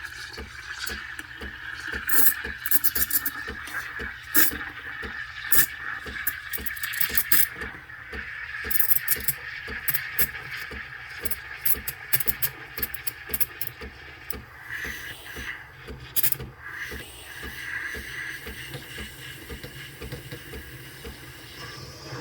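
Breville espresso machine's steam wand hissing and squealing in a jug of water and Turkish coffee grounds, with irregular crackling and sputtering as the mix heats. The squealing tone wavers and breaks up about two-thirds of the way through.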